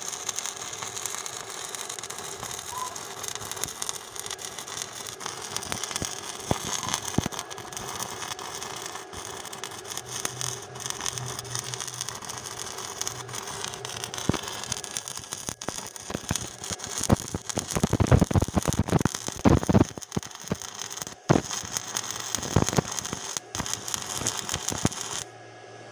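Stick (MMA) welding arc from a cheap Wert Mini 200 inverter welder burning a 3.2 mm Nittetsu electrode on rusty steel: a continuous crackling hiss that turns louder and more spitting in the second half, then cuts off sharply near the end as the electrode is burned down. The machine keeps welding the whole electrode without tripping its thermal protection.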